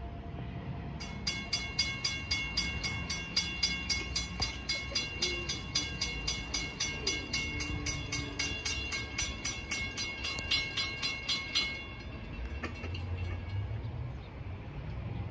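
Railroad grade-crossing warning bell ringing in rapid, even strikes, warning of an approaching train, then stopping about twelve seconds in. A low rumble follows near the end.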